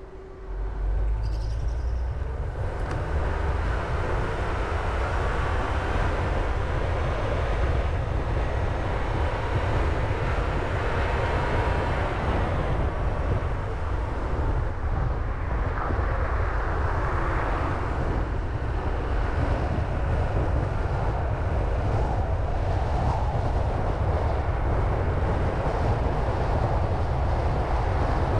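Car driving, a steady low rumble of tyre and wind noise that jumps up sharply about a second in.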